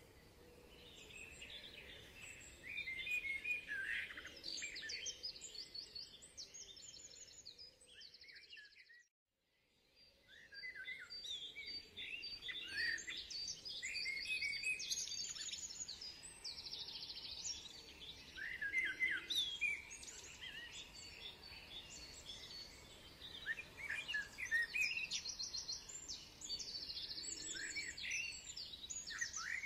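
Several songbirds singing, with many short chirps, quick trills and sweeping calls overlapping, over a faint steady background hum. The sound cuts out completely for about a second around nine seconds in, then the birdsong resumes.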